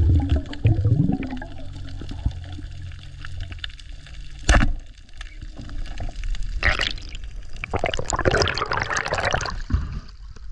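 Water sloshing and splashing against a small boat, with a boat motor's low hum fading out in the first couple of seconds. A single sharp knock about four and a half seconds in is the loudest sound, and there are two bursts of splashing in the second half.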